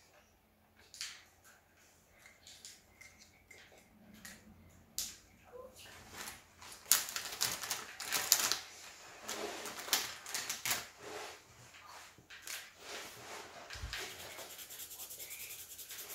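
Felt-tip marker strokes scratching on paper, then pens and markers clicking and rattling as a hand rummages through a zippered pencil case about halfway through, then quick, even back-and-forth marker strokes near the end.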